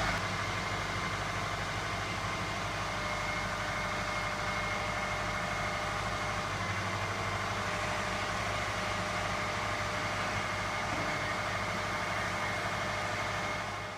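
Subaru EJ25 2.5-litre flat-four engine idling steadily, just installed and running.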